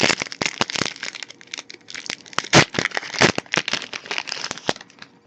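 Magic: The Gathering booster pack's foil wrapper being torn open and crinkled by hand, with dense irregular crackling that stops shortly before the end.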